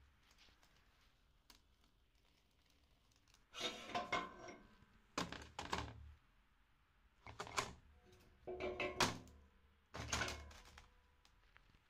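Metal parts of a meat grinder knocking and scraping as it is taken apart: five short bursts of clunks, the first about three and a half seconds in and the rest about every one and a half seconds.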